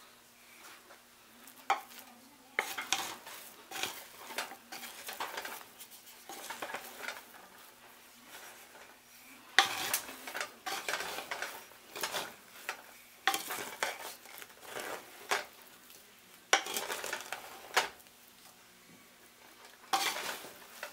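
Wooden spatula stirring and scraping freshly cooked biryani rice in a metal pot, fluffing it after dum cooking. The scraping comes in irregular bouts with short pauses between.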